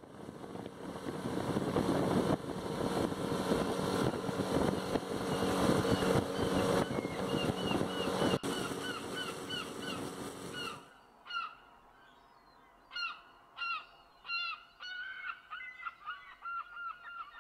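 A flock of birds giving short, repeated honking calls, several a second. For the first eleven seconds they sound over the steady noise of a boat running across open water. At that point the boat noise cuts off suddenly and the honking goes on, clearer.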